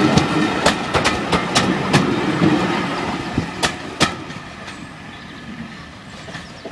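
Railway passenger coaches passing close by, their wheels clattering over the rail joints with sharp clicks over a low rumble. The last coach goes by about four seconds in, and the rumble fades as the train draws away.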